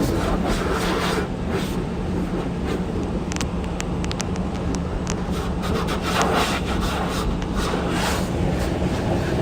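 Car wash machinery running: a steady motor hum under a continuous rush of spraying water noise, with a few sharp clicks between about three and five seconds in.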